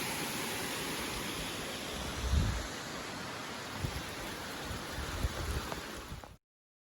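Steady rushing roar of a waterfall, with a few low rumbles on the microphone around the middle. It cuts off suddenly just before the end.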